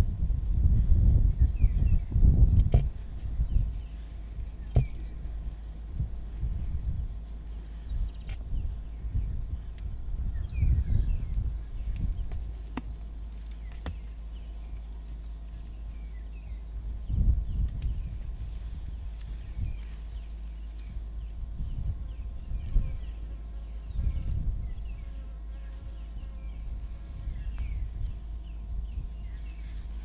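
Steady high-pitched insect drone in the bush, with intermittent low rumbles that are loudest in the first few seconds and a few sharp clicks.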